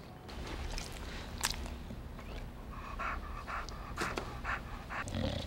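English bulldog panting: a quick, even run of short breaths, about three a second, starting about halfway through.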